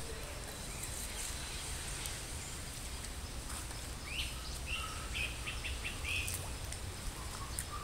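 Outdoor creekside ambience: a steady low rumble and faint hiss, with a bird giving a rising call and then a quick series of short chirps about halfway through.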